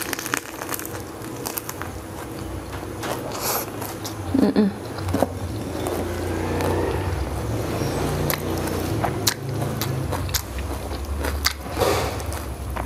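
Close-up biting and chewing of a bánh xèo crepe rolled in mustard-green leaves, with many short sharp crackles throughout. A louder mouth sound comes about four and a half seconds in.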